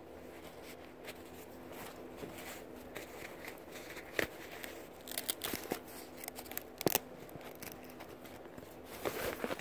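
Faint rustling and scattered clicks of objects being handled, over a low steady hum. The sharpest clicks come about four and seven seconds in.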